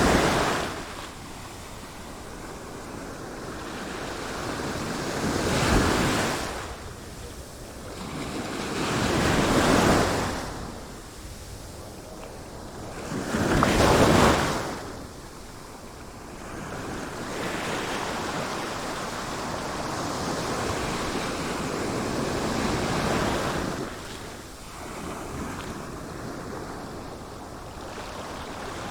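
Ocean waves breaking on a shore, each wave swelling to a rush and washing back, about every four seconds in the first half, then a steadier wash of surf with some wind.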